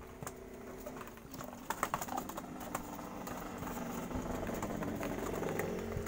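Barbary doves pecking cracked corn from an open palm, making quick irregular clicks of beaks on grain and skin, with low dove cooing building near the end.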